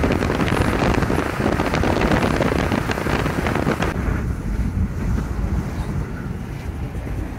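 Wind buffeting the microphone, then from about four seconds in the steady low rumble of a car driving, heard from inside the cabin.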